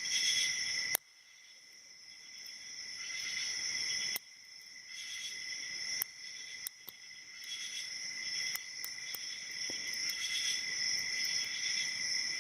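Crickets chirping in a steady high trill, broken now and then by sharp single clicks of a lock pick and tension wrench working the pins of a padlock, about seven over the stretch.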